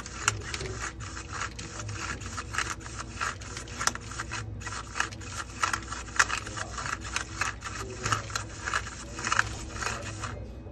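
Motor-driven automatic cat food dispenser running and pushing out a portion of cat food, a dense, irregular scraping and clattering of food inside the mechanism over a low hum. It stops shortly before the end.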